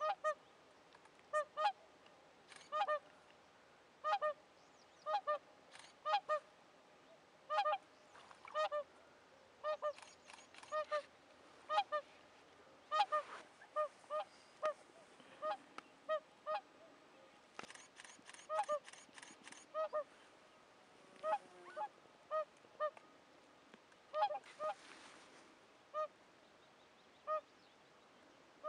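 Whooper swans calling: repeated trumpeting honks, many of them in quick pairs, coming every second or so.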